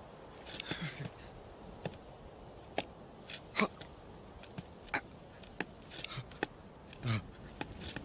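Sheep's hooves clicking on rock in scattered, irregular steps as it shifts its stance, with a few soft breathy hisses.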